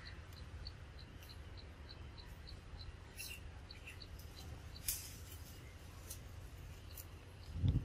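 Quiet forest background: a faint high chirp repeating evenly about four times a second, thinning out after the first few seconds, with a few sharp clicks and a low thump near the end.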